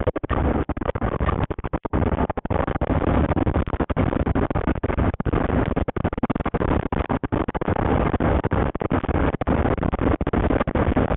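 Road and cabin noise of a moving car picked up by a dashcam microphone: a rough, steady rush broken by many brief dropouts.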